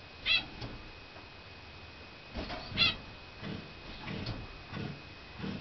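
Two short high-pitched squeaks from a small animal, about two and a half seconds apart, with soft rustling of straw bedding in between.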